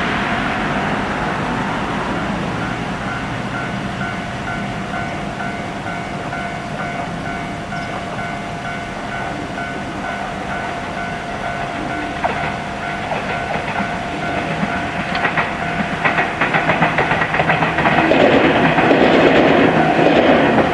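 Japanese level-crossing electronic warning bell ringing in a steady repeating tone. About halfway through, a Joshin Electric Railway train comes over the crossing with rapid clickety-clack from its wheels on the rail joints, growing louder until it is the loudest sound near the end.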